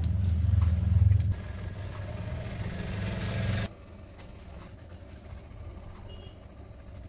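Steady low mechanical hum, like a motor running, with a few faint ticks at the start. It drops sharply in level about a second in and again nearly four seconds in.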